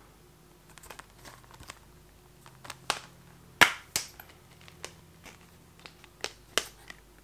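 Clear plastic Blu-ray Amaray case being handled and opened: a scatter of sharp plastic clicks and snaps, the loudest about halfway through.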